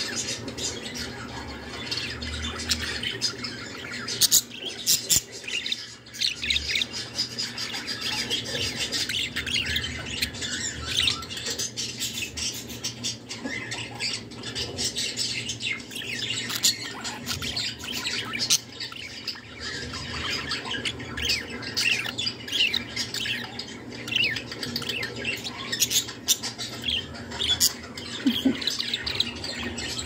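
A female budgerigar warbling: a continuous chattering song of quick squeaks, clicks and chirps, the sound of a happy budgie.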